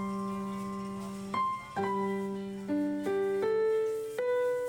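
Background piano music: slow, sustained notes and chords, a new one struck about every half second to a second and each left to ring and fade.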